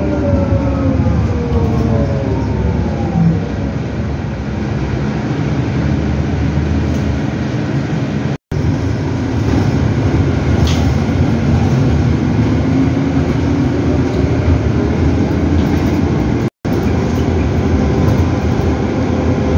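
Inside a CAIO E-Millennium battery-electric bus with Eletra drive: the electric traction motor whines over steady road and body rumble. The whine falls in pitch over the first few seconds as the bus slows, and later rises again as it picks up speed. Two brief cuts to silence break the sound about 8 and 16 seconds in.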